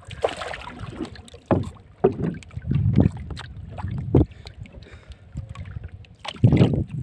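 Irregular knocks and thumps with gusts of wind on the microphone, aboard a small outrigger fishing boat at sea as a handline is pulled in by hand.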